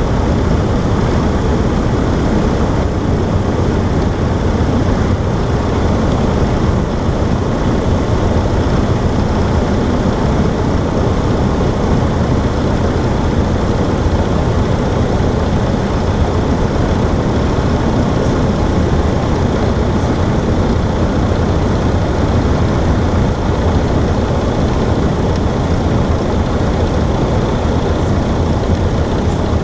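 Cessna 152's four-cylinder Lycoming engine and propeller running at a steady drone.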